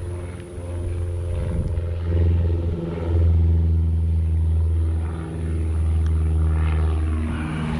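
A motor engine running steadily, a low hum that grows louder about three seconds in and dips briefly a little after five seconds.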